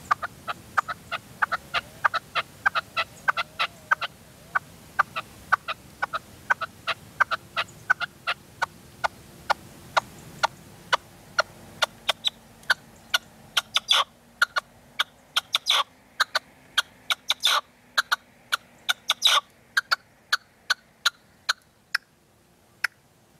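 Red-legged partridge calling from a decoy cage: a fast run of short, sharp notes, about two to three a second, with a few louder notes in the second half.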